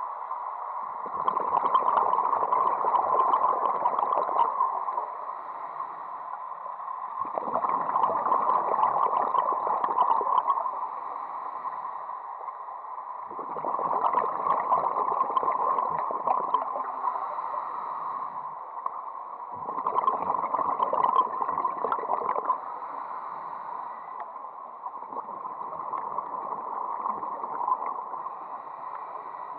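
Scuba diver breathing through a regulator, recorded underwater: bubbling gurgle of each exhalation lasting about three seconds, repeating about every six seconds, with quieter inhalation between.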